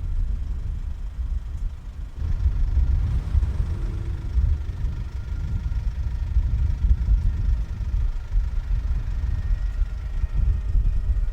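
Fire engines running, an uneven low rumble; faint higher tones come in near the end.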